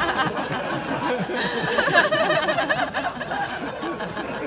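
Audience and panel laughing, with some overlapping murmured chatter.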